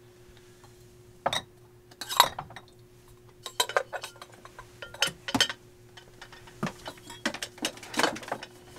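Irregular clinks and knocks of a lava lamp's glass bottle and base being handled and set down, about ten in all, over a faint steady hum.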